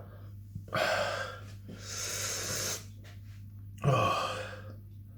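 A man breathing hard through a chili burn: a long breath out about a second in, a hissing breath through the teeth around two seconds, then a sudden sharp gasp near four seconds.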